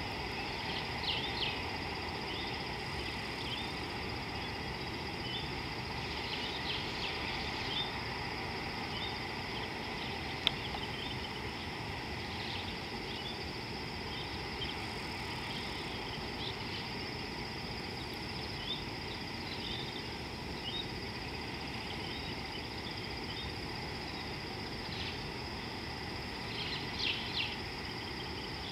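Outdoor ambience at a water hole: a steady hiss with a steady high drone, scattered short bird calls and chirps throughout, a few louder ones near the end, and a single sharp click about ten seconds in.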